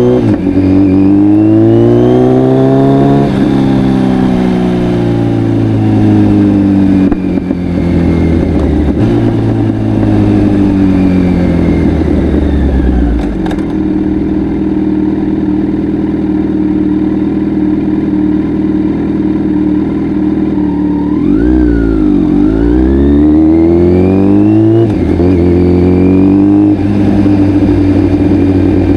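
Kawasaki Z900's inline-four engine through an Akrapovic full exhaust, under way. It revs up in steps through the gears, holds a steady pitch through the middle, then drops briefly and pulls up again.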